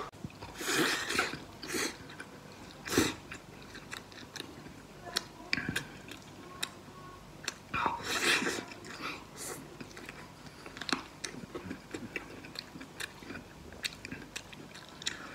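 A man biting and chewing meat off a braised chicken leg close to the microphone: wet chewing with sharp clicks, and louder bites about a second in, at about three seconds and around eight seconds.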